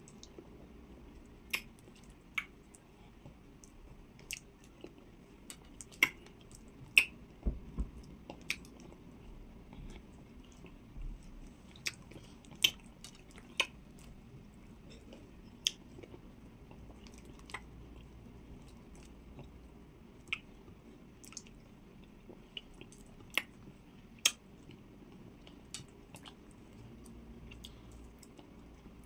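Close-miked chewing of amala, okra soup and roasted chicken, with irregular sharp wet mouth smacks.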